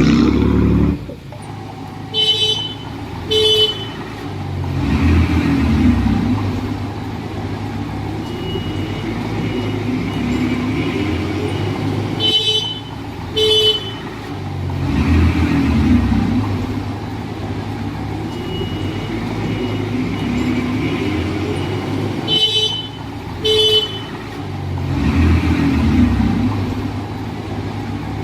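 Heavy diesel earthmoving machinery running and rising in revs about every ten seconds, as under load. Pairs of short horn-like toots about a second apart sound three times, with fainter intermittent beeping between them.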